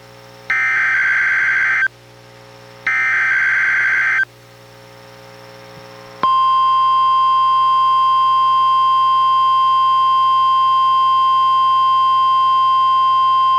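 NOAA Weather Radio Required Weekly Test: two short raspy SAME digital header bursts about a second apart, then, after a pause, the steady 1050 Hz NWR warning alarm tone comes on about six seconds in.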